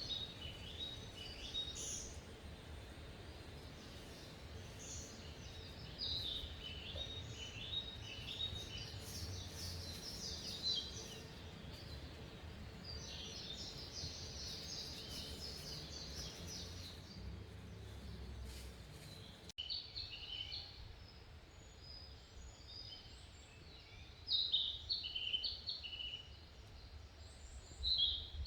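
Several small birds chirping and twittering in quick runs of short high notes, over a low steady background rumble. The sound breaks off abruptly about two-thirds of the way through and resumes with birds still calling over a quieter background.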